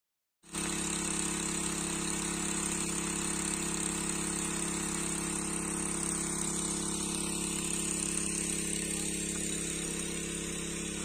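Pump motor running steadily, draining the pond: a constant hum with hiss that cuts in about half a second in.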